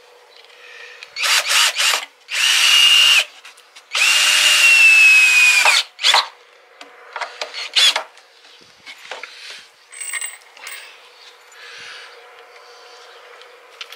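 Electric drill run in several short trigger bursts, the longest lasting about two seconds with its whine sagging slightly in pitch. Light knocks and handling sounds fall between the bursts.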